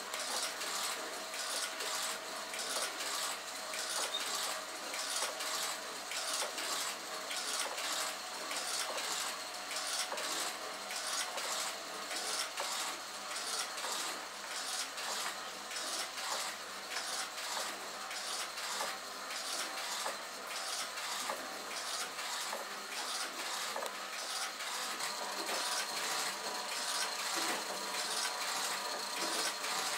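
Clockwork mechanism of a kinetic sculpture running: gears and ratchets make a steady, rapid clicking, with a few faint steady tones under it.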